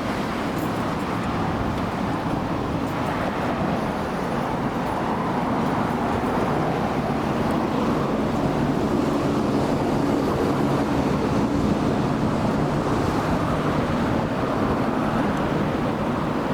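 Steady vehicle running noise that swells a little in the middle and eases off again.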